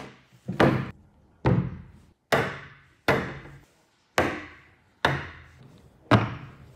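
A series of about seven sharp clunks, a little under a second apart, each ringing briefly: steel SBR linear rails and their bearing blocks being set down on a plywood tabletop.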